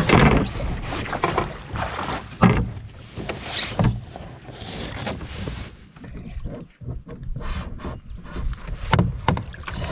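Irregular knocks and bumps in a canoe as a netted pike is handled over the side, over a background of wind and water noise.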